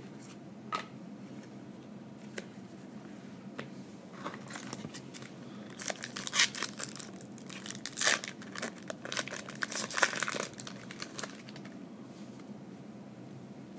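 A trading-card pack wrapper being torn open and crinkled: a run of sharp crackling rustles over several seconds, after a few faint clicks.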